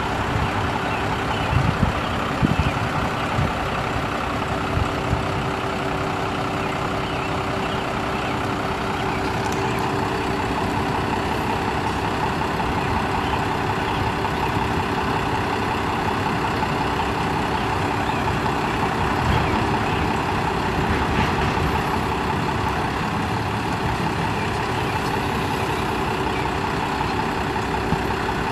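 Cummins ISB 5.9-litre inline-six diesel engine of a Freightliner FL70 digger derrick truck running steadily while its Altec hydraulic boom is worked. A few clunks come in the first few seconds.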